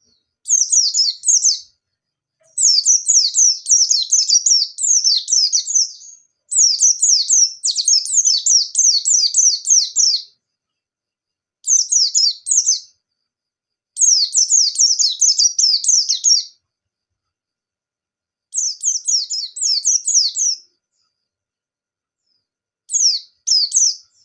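A pleci (white-eye) singing its energetic full song: seven high-pitched chattering phrases, each a fast run of short down-slurred notes. The phrases last one to four seconds and are separated by short pauses.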